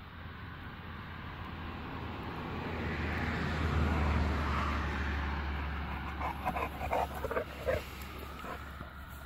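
Bullmastiff dogs at play giving a quick run of short, high yips, bunched together a little past the middle. Before them, a low rumble swells and fades.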